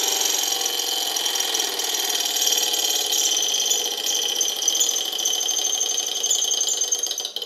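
Small model Stirling engine running very fast: a steady mechanical whir with a high whine over it. The sound falls away sharply right at the end.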